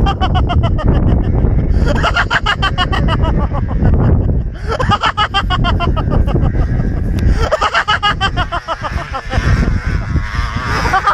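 A man laughing hard in several long bouts of rapid, pulsing laughter, each a couple of seconds long with short breaks between, over a steady low rumble.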